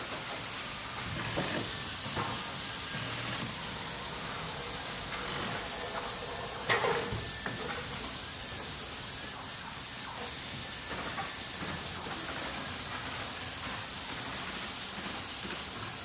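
Small-factory machine noise: a steady hiss with stretches of fast rhythmic pulsing, and a single sharp knock about seven seconds in.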